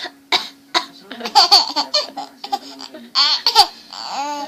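Laughing in giggling bursts instead of the cough that was asked for: a few short sharp bursts, then a longer run of laughter.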